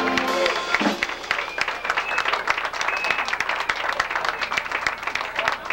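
A live band's held chord stops about a second in, and an audience applauds.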